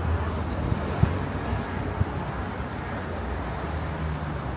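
Street traffic ambience: a steady wash of traffic noise under a low engine hum, with two brief knocks about one and two seconds in.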